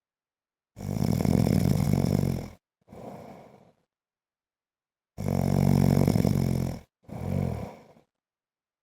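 A man snoring. There are two loud, pitched snores of nearly two seconds each, a few seconds apart, and each is followed by a shorter, softer snore. Between them there is complete silence.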